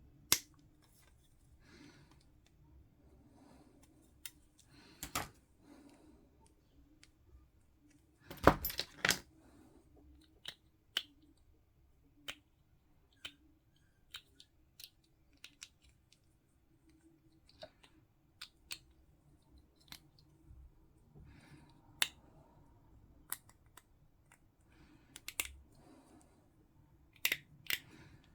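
Scattered small clicks and taps of plastic miniature parts and hobby tools handled on a work surface, with a louder cluster of knocks about eight and a half seconds in and a few sharper clicks near the end.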